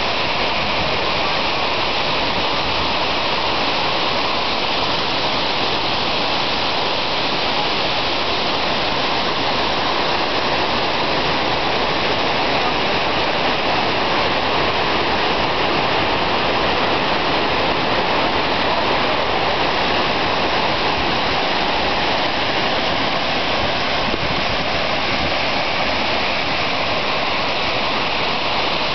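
Miner's Falls, a waterfall, pouring onto the rocks at its base: a loud, steady rush of falling water.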